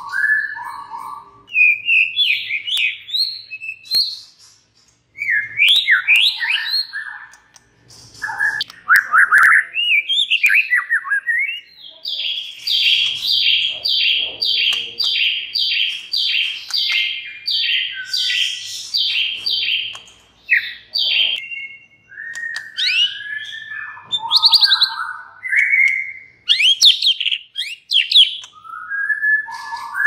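White-rumped shama (murai batu) in full song: loud, varied whistled phrases. In the middle comes a long run of fast repeated notes, about two a second, before the varied phrases return.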